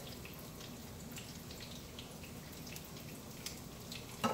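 Hot oil sizzling in a pan as coated chicken of the woods mushroom pieces deep-fry, a faint steady hiss dotted with small crackling pops. A sharp clack near the end.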